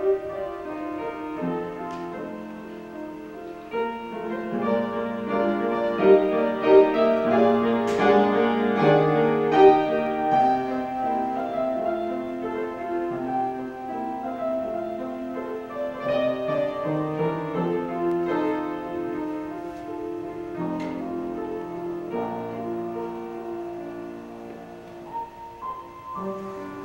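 Solo piano playing the accompaniment of an opera score in place of the orchestra, with chordal passages that swell a few seconds in and then settle softer.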